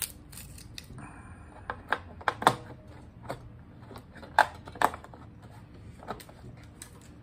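Scattered light clicks and taps of small objects, a battery and a small metal tool, being handled by hand over a tabletop, with a few sharper clicks about two and a half seconds in and twice near the five-second mark.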